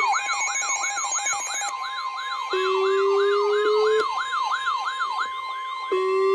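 Several electronic emergency alert tones sounding together: a siren-like tone falling in pitch over and over, about two to three sweeps a second, layered over steady and pulsing beeps, with a long steady tone joining about two and a half seconds in.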